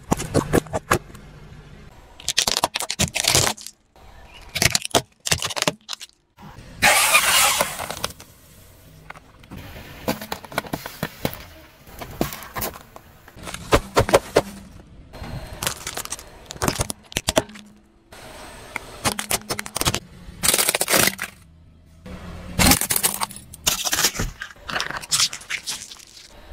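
A car tyre rolling over and crushing a series of objects: balloons in shaving foam, bags of crisps and brittle pieces. It makes a string of short cracks, pops and crunches one after another with brief pauses between.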